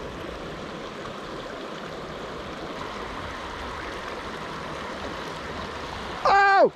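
Steady rush of a shallow mountain creek flowing over cobbles. Near the end comes a loud, half-second pitched cry that falls in pitch at its end.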